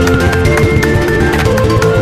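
Background music with a steady drum beat and held melodic notes.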